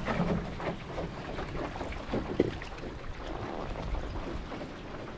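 Wind buffeting the microphone outdoors, with scattered light clicks and rustles.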